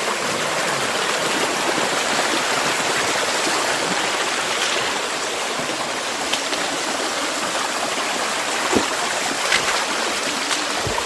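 Shallow rocky mountain stream rushing and splashing over stones, a steady rush of water, with a few faint knocks near the end.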